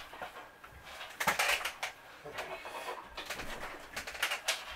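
Apple MagSafe charger being handled: its cable rustling and the plastic power adapter clicking and knocking in the hands, in a run of short clicks.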